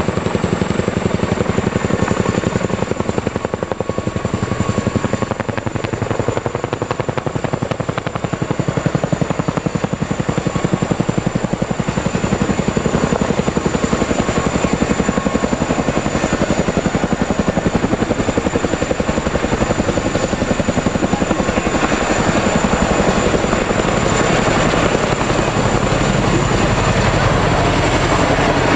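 Boeing CH-47 Chinook tandem-rotor helicopter hovering low with a sling load, its two rotors beating rapidly and steadily. The sound grows louder and fuller about three quarters of the way through as the helicopter comes closer.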